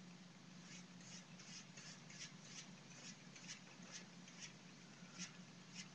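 Faint, quick scratchy strokes of a paintbrush on a lobster buoy, about a dozen irregular strokes over a low steady hum.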